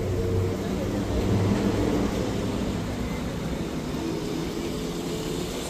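Vehicle engine running with a low hum, strongest in the first couple of seconds and then fading into a steady low traffic rumble.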